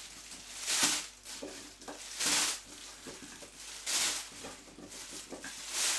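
Thin plastic roasting bag crinkling in short bursts about every second and a half as handfuls of oiled potato wedges are dropped into it, with faint soft knocks of the pieces in between.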